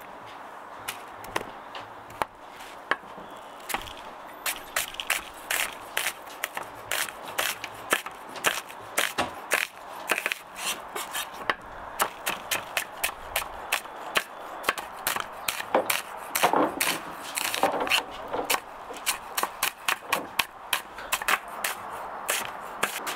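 Knife chopping on a wooden cutting board: an irregular run of sharp knocks, a few a second, sparse at first and quicker after a few seconds.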